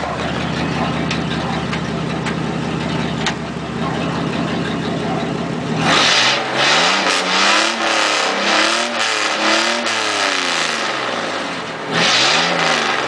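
1993 Chevy S-10 Blazer's straight-piped 4.3-litre V6 exhaust, idling steadily and then revved in several quick blips from about six seconds in, the pitch rising and falling with each one, with one more rev near the end.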